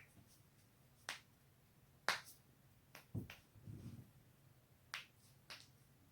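Neck joints cracking: a series of sharp pops, roughly one a second, some coming as quick doubles and a cluster of three near the middle.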